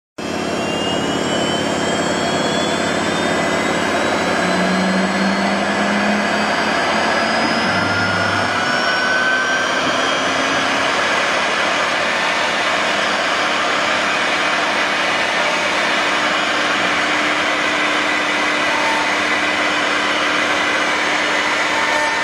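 CNC router spindle running as the bit cuts a wooden board: a whine that rises in pitch over the first ten seconds as the spindle spins up, then holds steady over a loud, even rushing noise.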